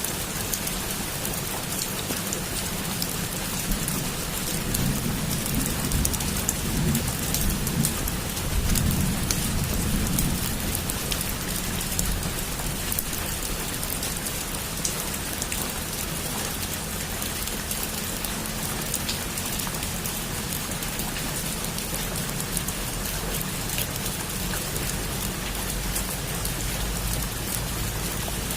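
Heavy rain falling on a rooftop: a steady hiss dotted with fine drop ticks. A low rumble of distant thunder swells a few seconds in and fades by about ten seconds.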